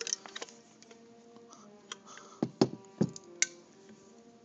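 A hand-held caulking gun being handled and squeezed: a cluster of about four sharp clicks and knocks a little past halfway.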